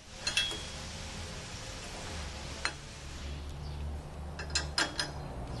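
A few light clicks and clinks as garage door opener parts (pulley, belt hardware) are handled, with a cluster of clinks near the end, over a low steady hum.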